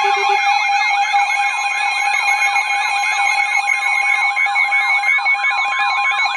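Several weather alert radios sounding their alarms at once: steady tones overlaid with fast, repeating up-and-down warbling sweeps. A low pulsing beep stops about half a second in.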